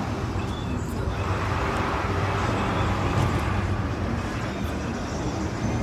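Steady road and engine noise from inside a moving car: a constant low rumble with tyre hiss over it.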